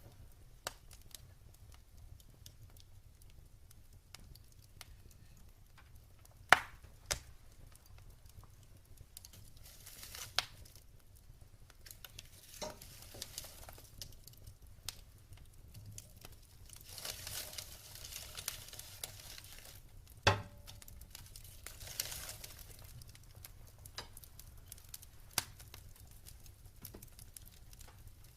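Wood fire in a fireplace crackling, with scattered small pops, two loud sharp pops about a quarter of the way in and again about two-thirds through, and brief spells of hissing.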